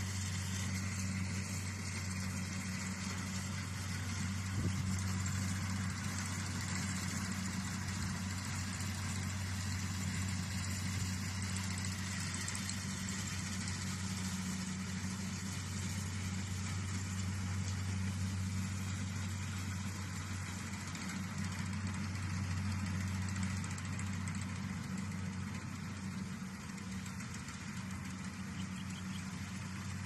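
Rice combine harvester's engine running steadily as the machine harvests, a constant low hum with a hiss above it.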